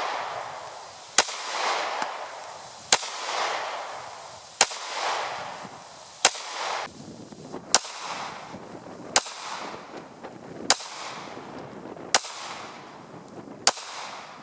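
Smith & Wesson M&P9c compact 9mm pistol firing slow, aimed single shots: nine sharp shots about one every second and a half, each followed by a rolling echo.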